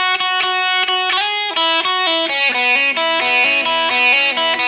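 Electric guitar playing a two-bar open-position blues lick in E, single notes picked one after another. It opens on a repeated note, then steps down in pitch through a run that uses open strings and hammer-ons.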